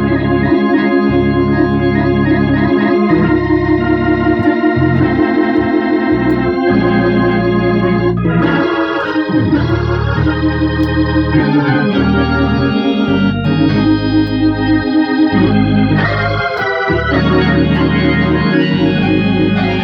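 Hammond-type tonewheel organ played through a refurbished Leslie 147 amplifier into a one-speed Leslie 22H rotating-speaker cabinet: sustained chords over a moving bass line, the level fluttering rapidly.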